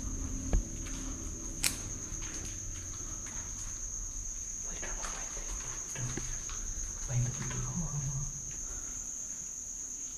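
Crickets trilling steadily on one high note, with a sharp knock about half a second in and a click about a second later.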